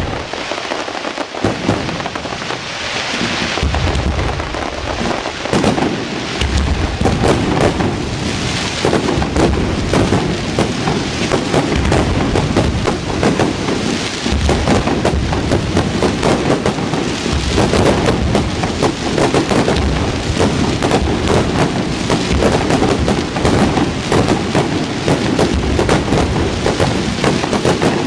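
Fireworks display: a dense, unbroken crackle of many small reports, with repeated deep bangs from bursting shells, starting suddenly and keeping up throughout.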